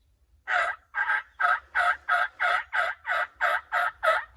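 A long, even run of turkey yelps, about three short notes a second.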